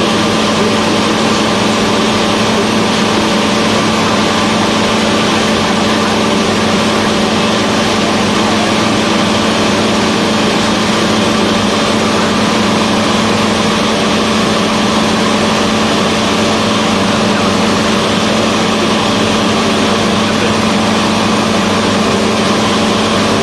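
Cessna 172's piston engine and propeller droning steadily, with a strong low hum running unchanged throughout.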